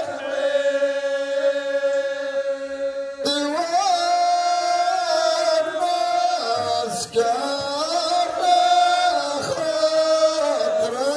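Ahwash chant of men's voices: a lead singer holds one long note through a microphone, then a line of men comes in together about three seconds in, singing long held notes in unison.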